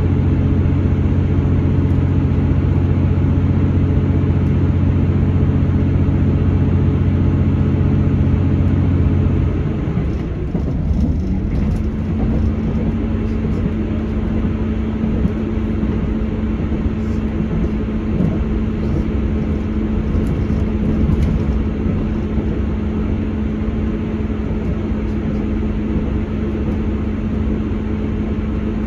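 Steady running of a Class 159 Sprinter diesel multiple unit heard from inside the passenger saloon: the underfloor diesel engine hums over the rumble of wheels on rail. About ten seconds in, the engine's low hum drops away and a different, higher steady tone carries on.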